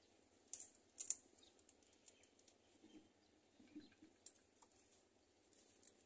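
Near silence with a few faint, short clicks and crackles. The loudest come about half a second and a second in, with a couple more near the end.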